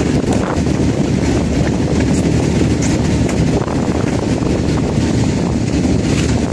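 Red plastic eel traps on a longline clattering and knocking against each other and the gunwale as they are paid out over the side of a fishing boat, a continuous rattle over a steady rumble.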